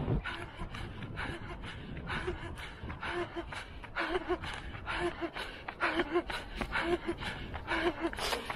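A runner breathing hard at race pace: quick, rhythmic panting with short voiced gasps, in time with footsteps on stone paving.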